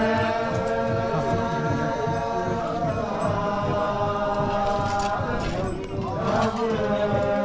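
A group of voices chanting in long, held notes, with a wavering pitch slide about six seconds in.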